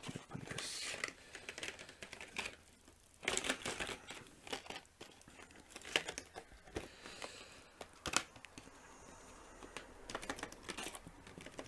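Paper and cardboard packaging rustling and crinkling as it is handled, with scattered light taps and clicks.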